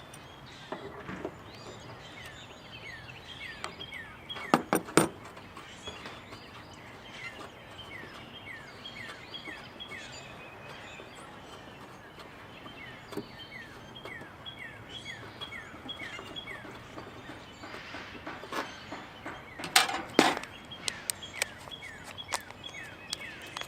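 A bird repeating short falling chirps in the background, with a few sharp metallic clicks about five seconds in and again near the end as a wrench works the factory antenna loose from its base.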